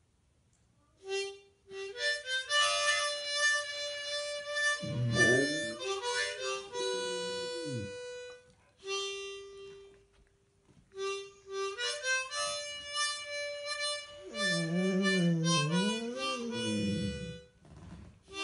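Harmonica played in chords and held notes, with an old rottweiler howling along twice: a short howl that bends up and falls away, then a longer, wavering one.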